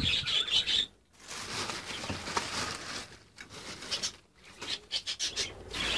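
Plastic bags and packets rustling and crinkling as they are rummaged through by hand, irregular, with a few short pauses.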